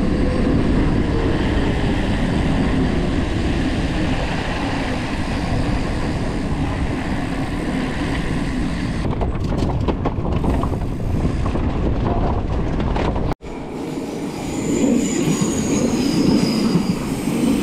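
Mountain bike rolling at speed: a steady, loud rush of tyre and riding noise, broken by a short dropout about 13 seconds in.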